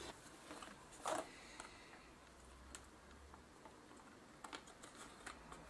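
Faint clicks and taps of a plastic cover panel being handled and fitted onto a camcorder's tape compartment: one clearer click about a second in, then a few small ticks near the end.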